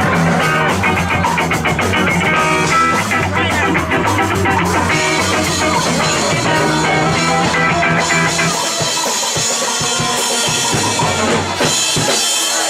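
Ska-punk band playing live, loud, with drum kit and electric guitar. About two-thirds of the way in the low bass drops out while the guitar and cymbals carry on.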